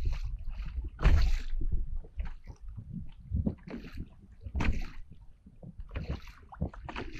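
Small choppy waves slapping and splashing irregularly against a kayak hull, the loudest splash about a second in, with wind buffeting the microphone as a low rumble.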